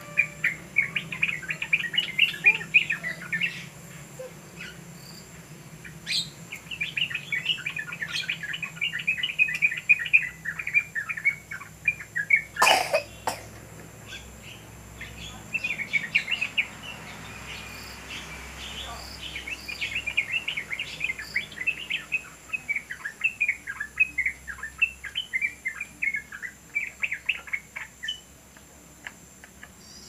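A caged yellow-vented bulbul (trucukan) singing in long runs of rapid, chattering notes, in several bursts with short pauses between. A single sharp knock cuts in a little before halfway.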